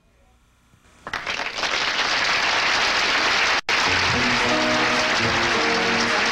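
Studio audience applause breaks out about a second in. About four seconds in, after a split-second dropout, a band starts playing the song's introduction with the applause continuing under it.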